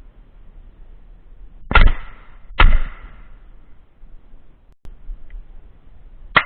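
Shotgun shots at doves: two loud blasts in quick succession, under a second apart, about two seconds in, each with a short echo. A third, sharper shot comes near the end.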